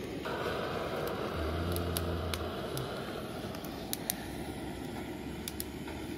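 Wood campfire burning: a steady hiss with scattered sharp crackles.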